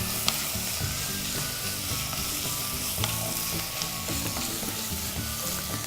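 Chicken, sprouts and mushrooms sizzling steadily as they are stir-fried in a pan, with a couple of light spatula clicks.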